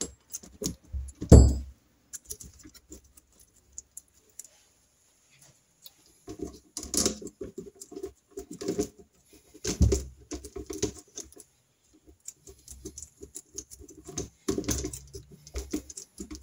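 Small metal clicks, taps and rattles of hand work on a bank of three Amal Concentric carburettors as the fuel pipe's banjo bolts are fitted. The clatter comes in bursts with quiet gaps between them, and a sharp knock about a second and a half in is the loudest.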